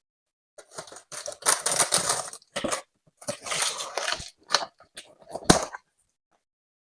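A cardboard shipping box being opened and its packaging handled: irregular bursts of rustling, scraping and tearing, with a sharp snap about five and a half seconds in.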